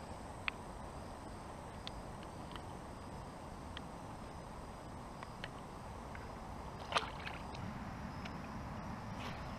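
Small clicks and knocks of fish and tackle being handled in a sit-on-top kayak, over a low steady rumble, with one sharper click about seven seconds in. A thin high steady tone runs underneath and stops shortly after the sharp click.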